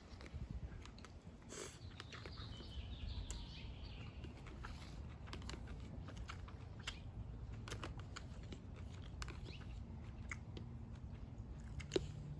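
A person chewing food close to the microphone, with scattered small clicks and taps from fingers and a fork picking food out of plastic meal-prep containers.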